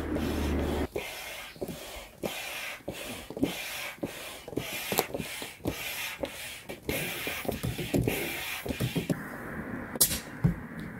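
Stand-up hand air pump inflating a drop-stitch kayak: rhythmic strokes, nearly two a second, each a rush of air with a clack, stopping about nine seconds in. A single sharp click follows near the end.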